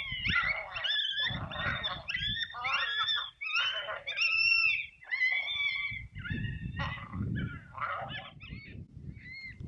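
Coyote yips and howls played from an electronic predator call: a dense chorus of short rising-and-falling yelps, several overlapping, thinning out and growing fainter near the end.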